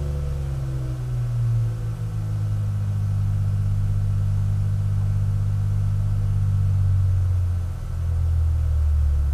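3.5-litre Porsche air-cooled flat-six on an engine dyno, running steadily at low revs through its test silencer as it eases down after a full-throttle power pull.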